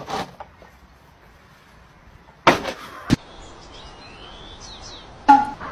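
Two sudden knocks about half a second apart, the second a sharper click, then faint high chirping and a short pitched burst near the end.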